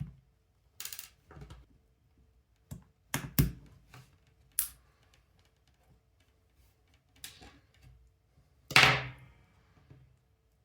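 Small hand tools clicking and knocking against a plastic G-Shock watch and the bench while its bezel screws are being worked loose: a scatter of separate light taps, with a louder, longer noise near the end.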